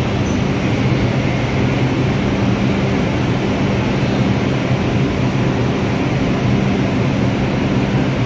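R142-series subway train standing at the station platform with its doors open: a steady hum with a few low, unchanging tones from its onboard equipment.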